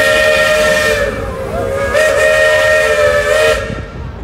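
Steam locomotive whistle on the Cedar Point & Lake Erie Railroad blowing two long blasts, several tones sounding together over a steam hiss. The first blast ends about a second in; the second runs from about two seconds in until shortly before the end.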